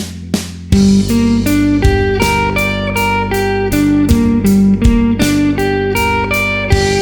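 Guitar playing an alternate-picking arpeggio exercise: single picked notes, about three to four a second, climbing and falling through major and minor arpeggio shapes over a sustained backing drone. It starts about a second in, after a few sharp count-in clicks.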